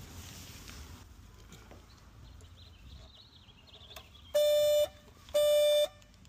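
Car alarm going off with two loud beeps, each about half a second long and a second apart. It is set off when the battery's negative terminal is reconnected.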